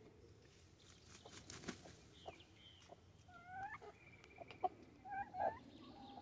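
Chickens clucking, with several short calls in the second half among scattered light taps.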